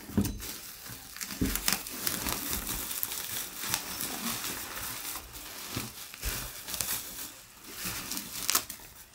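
Plastic bubble wrap crinkling and rustling as hands pull it open and push it aside, with scattered short crackles.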